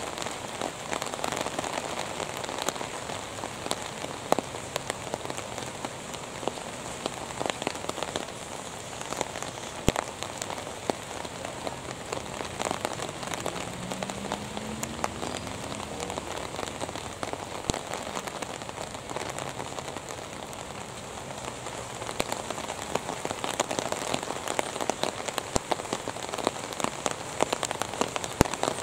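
Steady rainfall, an even hiss with many separate drops ticking sharply.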